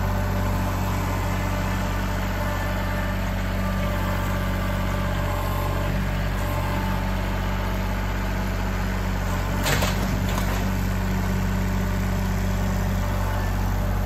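Kubota L3901 tractor's three-cylinder diesel engine running steadily while its loader grapple works a log. A single sharp knock comes about ten seconds in.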